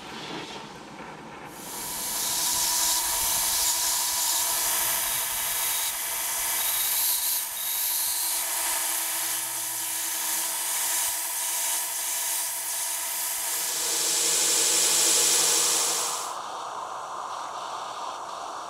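Belt grinder running with a small Damascus steel knife blade held against the belt, a steady high-pitched grinding that starts about a second and a half in. Near the end the grinding stops and a quieter steady hiss, a gas torch heating the blade, takes over.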